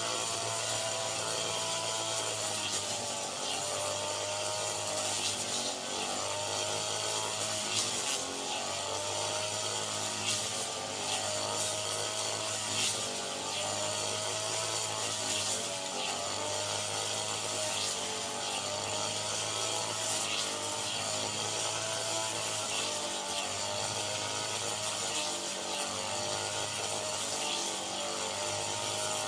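Small engine of rice-harvesting machinery running steadily, its pitch wavering slightly, with a steady hiss over it.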